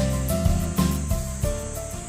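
Background music with a steady beat, fading down near the end.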